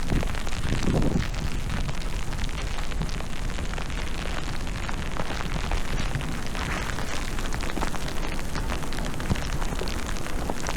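Wind buffeting the microphone in a snowstorm: a steady, low rumbling rush of wind noise.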